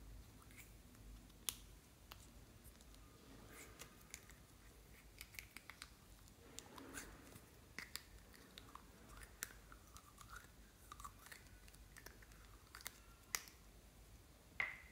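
Faint sticky clicks and squelches as slime is squeezed out of small plastic containers by hand into a glass bowl, with a few sharper clicks.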